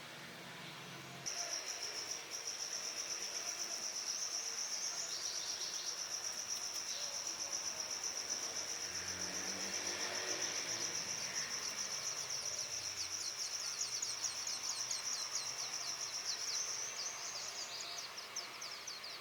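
Brown rock chat nestlings begging: a high, shrill, continuous buzzing call that starts suddenly about a second in and breaks up near the end into a quick run of separate downward chirps.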